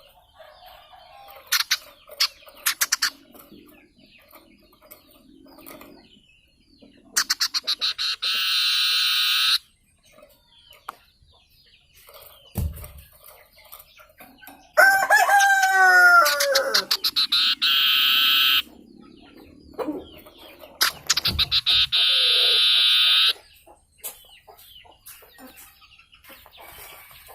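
A forest bird known in Indonesian as sirtu hutan, calling repeatedly. It gives two long buzzing trills that start as rapid pulses and then hold steady, plus a loud falling crow-like call about midway, with short sharp notes in between.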